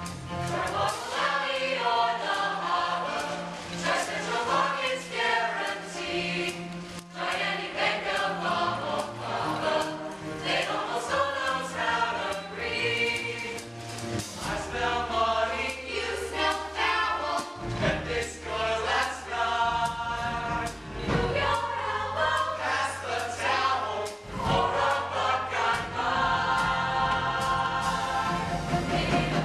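Male high-school choir singing in parts, over an accompaniment that holds long low bass notes.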